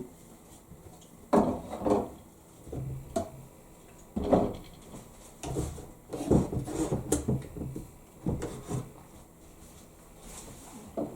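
Thin wooden boards being handled: irregular knocks and scrapes of wood on wood, several clustered groups with short gaps between.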